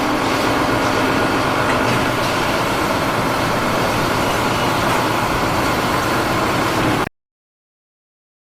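A heavy engine running loudly and steadily; it cuts off suddenly about seven seconds in.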